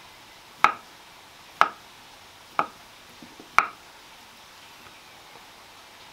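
Kitchen knife slicing soft boiled carrots on a wooden board: four sharp knocks of the blade striking the wood, about one a second.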